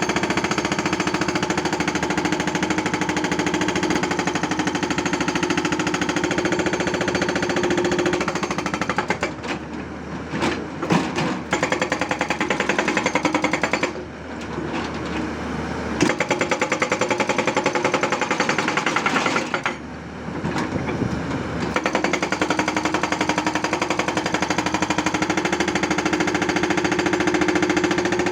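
Hydraulic rock breaker on a Tata Hitachi 200 excavator hammering in rapid, continuous blows, stopping briefly three times, with the excavator's engine running through the breaks.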